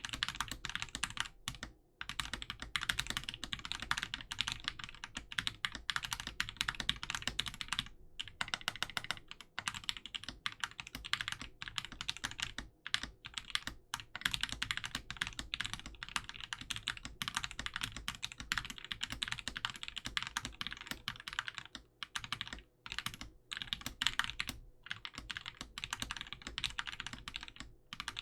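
Fast, continuous typing on a Corsair K70 mechanical keyboard with hand-lubed switches (SP-Star bottom housings, NK Cream tops and stems, Krytox 205g0) and Cherry-profile keycaps, with a few brief pauses. The spacebar is one the owner could not fix and may sound off.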